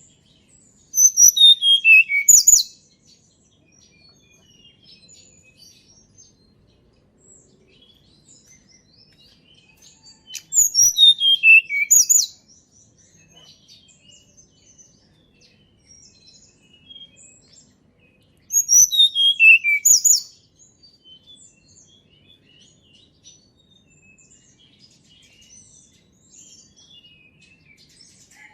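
Tledekan gunung singing three short, high phrases about eight seconds apart. Each phrase is a quick run of notes falling in pitch, ending in a rapid burst of high notes. Faint scattered chips fill the gaps.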